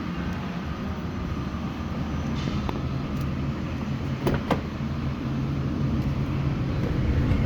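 A truck engine idling steadily, with a few sharp clicks about three and four and a half seconds in.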